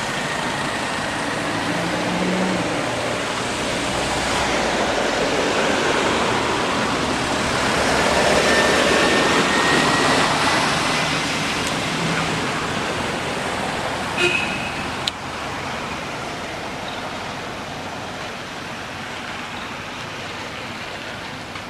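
Outdoor background noise: a steady rushing that swells to a peak about nine seconds in and then eases off. A brief high chirp and a sharp click come about fourteen seconds in.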